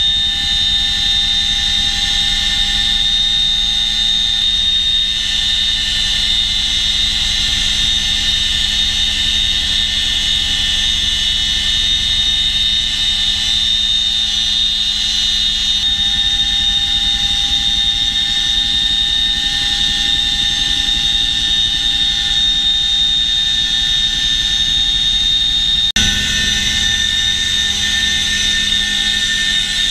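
CH-47 Chinook helicopter heard from inside its cabin in flight: its twin turboshaft engines give a steady high whine over a low rotor rumble. About 26 seconds in the sound changes abruptly and the whine shifts pitch.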